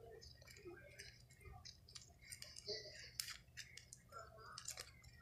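Faint, scattered sticky clicks and squelches of slime being kneaded by hand, old slime softened in hot water being worked back together to make it stretchy.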